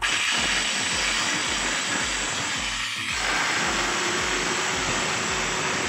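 Handheld marble cutter's motor and newly replaced gear and pinion running at full speed with no blade fitted: a steady, even whir that starts abruptly and stops near the end. It runs without the loud gear noise it had before the repair, the new gear, pinion and bearing having cured it.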